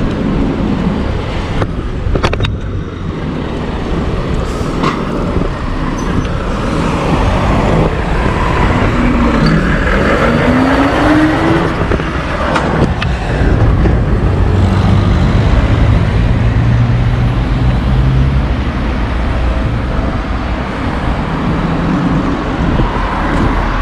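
Road traffic on a town street, cars passing, under a steady low rumble of wind across the microphone while cycling. A few short clicks, and a brief rising and falling tone about ten seconds in.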